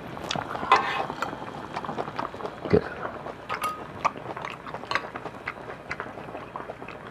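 Scattered light clicks and clinks of a wire mesh skimmer and chopsticks being handled over a pot of hot pot broth, with a duller knock about three seconds in.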